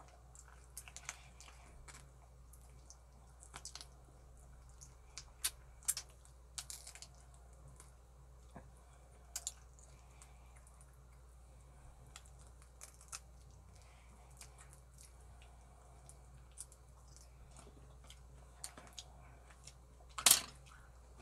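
Close-up eating sounds: a person chewing pork rib meat and sucking sauce off his fingers, with scattered short wet clicks and smacks of the lips. One louder sharp click near the end.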